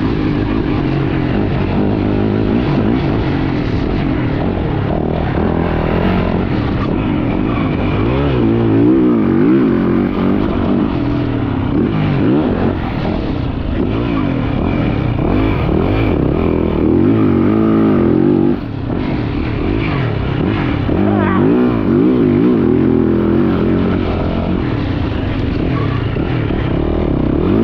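Yamaha YZ450F four-stroke single-cylinder dirt bike engine running under load, its pitch rising and falling over and over as the throttle is worked, with a short drop in level about two-thirds of the way through.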